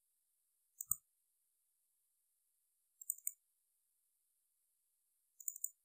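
Faint computer mouse clicks in three quick groups, about a second in, about three seconds in and near the end, with silence between them.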